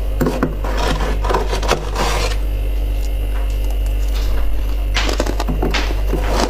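Irregular scraping and rubbing sounds over a loud, steady electrical hum.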